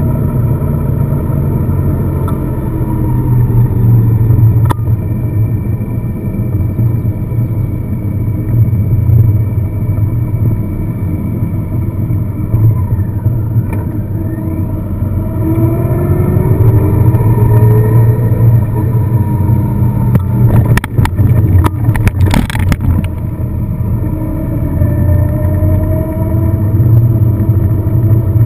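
A car driving, with steady engine and road rumble; the engine pitch rises several times as it accelerates. A short cluster of knocks or rattles comes a little past three-quarters of the way through.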